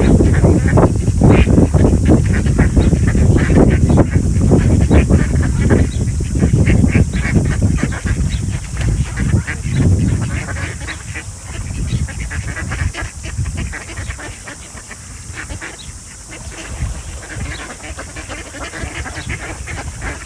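A flock of mallards and white domestic ducks quacking continuously, many calls overlapping, over a low rumble that is heavier in the first half and eases about halfway through. A steady high hiss sits behind it.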